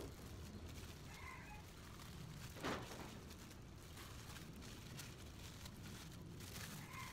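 Plastic bags worn as gloves rustling and crinkling as grease is worked into a motorcycle steering stem tube by hand, with one brief louder rustle about two and a half seconds in.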